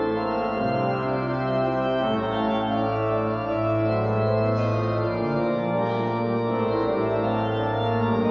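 Organ music: slow, sustained chords over a held bass, the harmony shifting every second or two.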